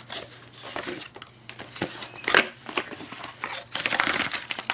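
Paper and cardboard packaging rustling and scraping in irregular bursts, with short clicks, as the contents of a phone box are handled and pulled out. The loudest scrapes come about halfway through and near the end.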